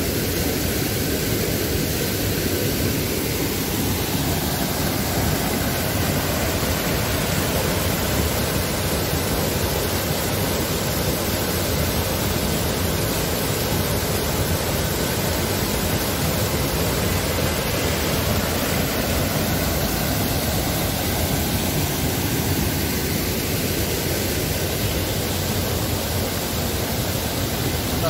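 Steady rushing of water pouring down a waterfall cascade, an even, unbroken noise.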